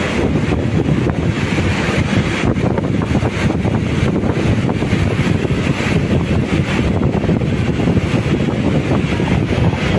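Loud, steady industrial din in a leaf-spring factory hall: a dense rumbling noise of running machinery with no clear rhythm or pitch.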